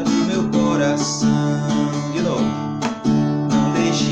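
Acoustic guitar strummed in a steady rhythm, moving through a few chords.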